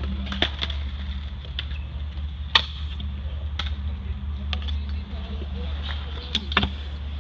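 Freestyle scooter rolling over a concrete skatepark: a steady low rumble with sharp clacks of the wheels and deck striking the concrete, the loudest about two and a half seconds in.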